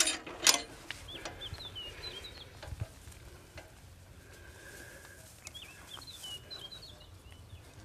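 A few light metal clinks of harness chains being hooked to a donkey's plough near the start, then a songbird singing two short runs of quick, high chirping notes.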